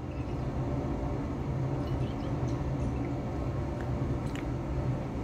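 Steady low room hum, with a few faint clicks of a glass conical flask being handled under a burette.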